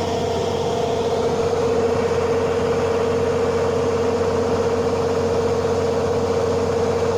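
Rice combine harvester running steadily: a constant machine drone with a strong, unchanging whine.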